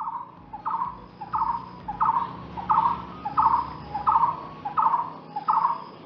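Blue-throated barbet calling: a repeated two-part phrase, a short lead note followed by a rolling, throaty burst, given about one and a half times a second.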